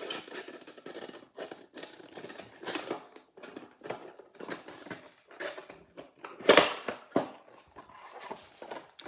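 A metal trading-card tin being unwrapped and opened by hand: irregular crinkling of plastic wrap and clicks of the tin and packs, with one louder clack about six and a half seconds in.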